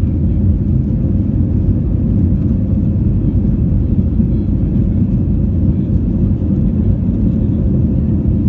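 Steady low rumble inside the cabin of an Airbus A321 under way: engine and airflow noise heard from a passenger seat.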